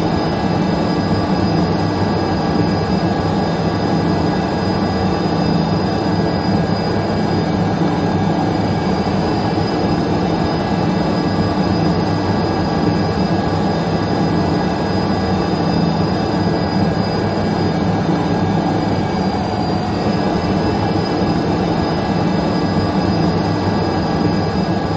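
Steady drone of a jet airliner in flight: a dense low rumble with a steady high engine whine over it.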